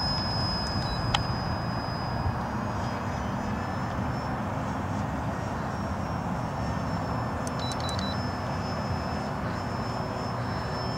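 Electric motor and propeller of a small foam RC model plane in flight: a thin, steady high whine that fades a few seconds in and comes back near the end. Heavy wind noise on the microphone runs under it.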